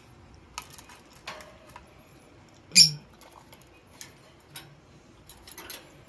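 African lovebirds stirring in a wooden nest box and cage: scattered soft squeaks, scratches and clicks, with one louder, brief sound about three seconds in.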